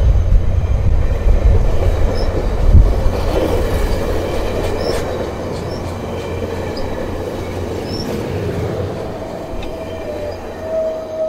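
VIA Rail passenger coaches rolling past close by as the train slows into the station: a low rumble of wheels that eases off after the first few seconds, with a few clacks over the rail joints. A steady wheel squeal builds near the end.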